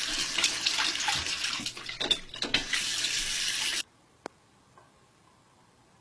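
Water running from a tap and splashing into a sink, a steady hiss that cuts off suddenly almost four seconds in. A single faint click follows.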